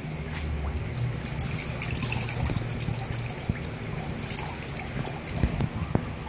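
Water trickling and splashing in a hydrographic dip tank as a gun stock is pushed down through the floating print film and lifted back out, water running and dripping off it, over a steady low hum.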